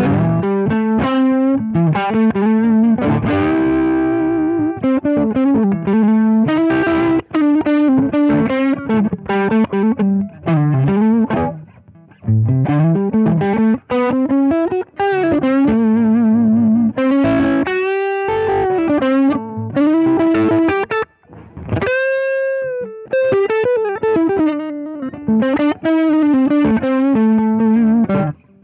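Electric guitar played through an iSet Hot Distortion mini pedal, a thick, saturated distortion, running through riffs and lead lines. It breaks off briefly twice. There are string bends, and a held note with vibrato about three quarters of the way through.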